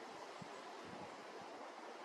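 Steady outdoor wind hiss, with a few faint low gusts buffeting the microphone.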